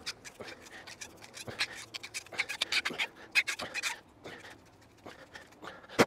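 Hand-turned flat drill bit boring into a green wooden stick, scraping the wood in quick irregular twisting strokes that ease off after about four seconds.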